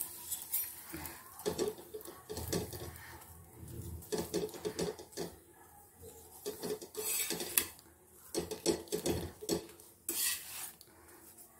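Steel spatula scraping and clinking against a flat iron tava as a puran poli is pressed and turned while it fries, in irregular strokes with the sharpest clinks about seven and ten seconds in.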